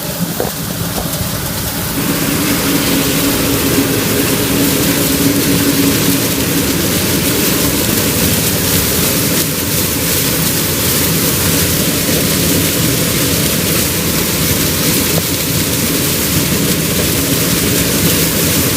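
Claas Lexion 560 combine harvester running while harvesting corn: a loud, steady engine drone under a dense rushing hiss of the threshing machinery. It gets louder about two seconds in and then holds steady.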